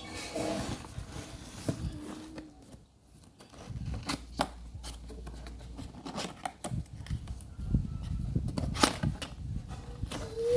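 Packaging and parts being handled: rustling with a run of sharp clicks and taps, over a low rumble in the second half.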